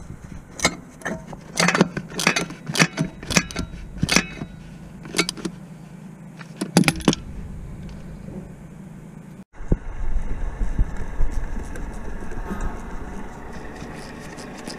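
Irregular sharp metallic clinks of hand tools on metal parts under the vehicle. After an abrupt cut about nine and a half seconds in, a steadier low rumble with a few faint clicks.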